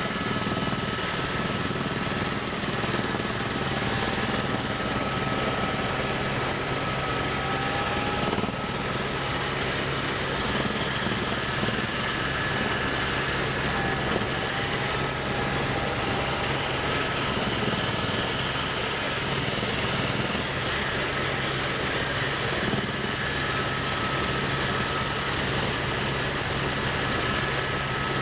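Sightseeing aircraft in steady flight, heard from aboard: a constant engine drone with a few steady tones over a broad rushing noise.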